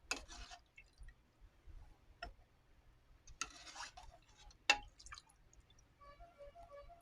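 Cooked chicken being lifted out of its broth: short splashes of liquid and a few sharp clinks of a utensil against the pot, the loudest clink about two thirds of the way through.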